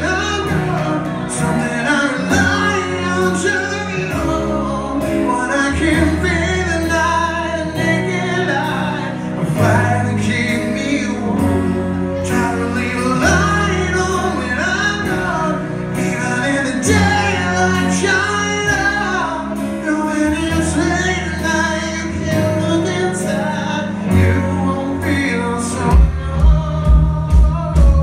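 Live rock band: a man singing lead over guitar and drums. A heavy, steady low beat comes in near the end.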